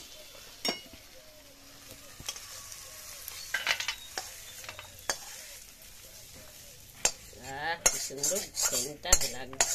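Metal spatula scraping and stirring cooked cauliflower-and-potato samosa filling in a hot kadai and scooping it onto a steel plate, with clinks of metal on metal and the sizzle of the hot pan. The scraping gets busier and louder in the last two seconds.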